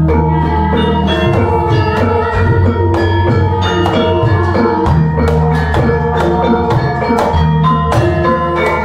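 Javanese gamelan ensemble playing: bronze saron and bonang metallophones struck in a dense, steady rhythm with kendang drums, over deep gong tones that ring out at regular intervals.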